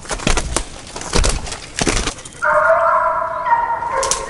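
Footsteps crunching through dry leaves and twigs, then about two and a half seconds in a scent hound starts baying in one long, drawn-out voice that goes on past the end: the hound giving tongue as it works the fox's trail.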